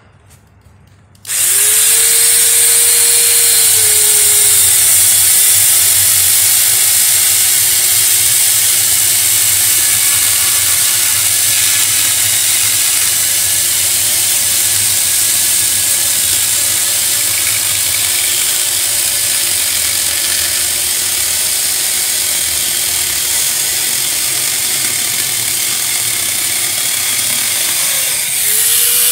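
Electric angle grinder fitted with a chainsaw bar-and-chain attachment starting about a second in and sawing through an old tree stump about 8 inches across. Its whine drops in pitch within a few seconds as the chain bites into the wood and holds steady under load. Near the end the pitch rises again briefly.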